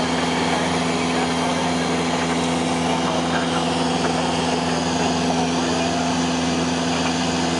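A Cessna 172's piston engine and propeller droning steadily in flight, heard inside the cabin: a strong, even low hum with a broad hiss above it.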